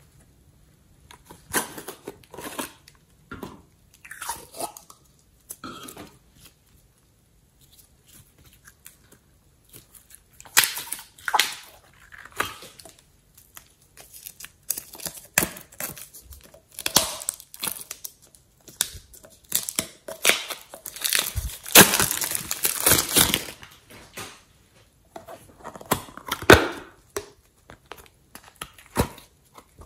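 Hard plastic slime containers handled and tapped in short clicks and rustles, then cellophane shrink wrap crinkling and tearing as a slime box is unwrapped. The unwrapping is a denser run of crinkling about two-thirds of the way through.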